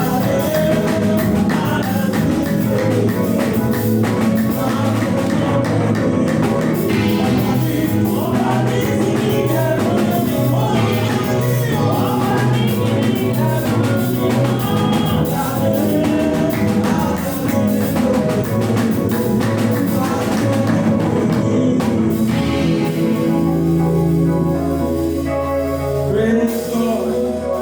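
Gospel praise music with singing and a drum kit, played loud and steady.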